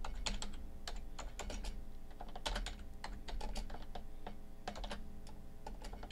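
Typing on a computer keyboard: irregular key clicks in quick runs with short pauses between them.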